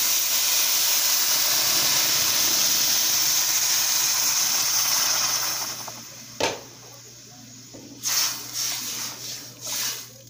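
Water poured into a hot aluminium pot of rice sautéed in oil and garlic over a high flame, sizzling and hissing loudly, then dying down about six seconds in. A single knock follows, then a spoon scraping and stirring in the pot near the end.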